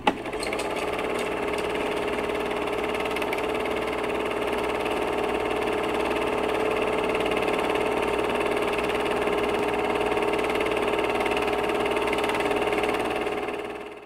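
A steady electronic drone made of many held tones, unchanging throughout and fading out near the end, with a short click at the very start.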